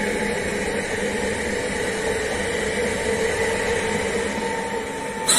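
Electric multiple unit passing close by at speed: a steady rumble of wheels on rail with a steady whine, easing a little as the last car goes by. A brief loud burst of noise right at the end.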